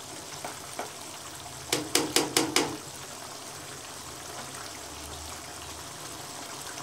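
Chicken karahi gravy simmering in a nonstick karahi with a steady bubbling hiss. About two seconds in comes a quick run of five sharp taps, about five a second, of the spatula knocked against the pan.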